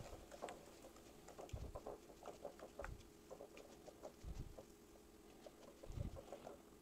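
Faint soft ticks and squelchy scrapes of a silicone spatula stirring thick cilantro mint chutney in a glass bowl, with a few dull low knocks.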